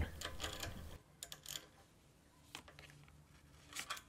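A few faint, scattered clicks of a socket wrench tightening the ignition coil's mounting bolts on a small engine, each click a second or more apart.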